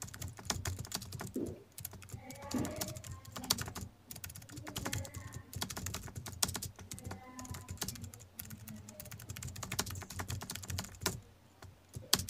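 Keys of a handheld scientific calculator being pressed: a quick, irregular run of small clicks as a calculation is entered, with a short pause near the end.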